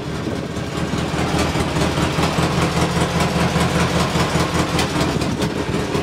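Polaris Sportsman 600 ATV twin-cylinder engine idling steadily, its rough idle cured by a replacement carburetor.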